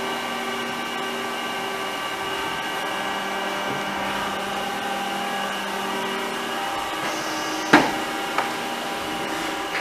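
Powered-up 2007 Haas SL20T CNC lathe and its bar feeder humming steadily at idle, a machine hum with several steady tones. Two sharp clicks come near the end, the second fainter.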